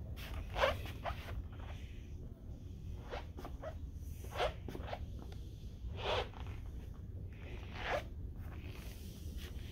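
Shoes scuffing on a tiled floor: about half a dozen brief, irregularly spaced scuffs over a low, steady hum from the room.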